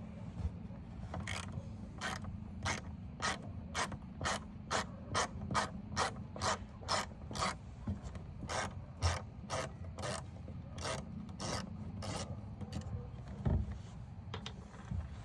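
Hand ratchet wrench loosening the screws of a blind-spot sensor module, each back-swing a short raspy ratcheting stroke, about two a second. A dull thump near the end.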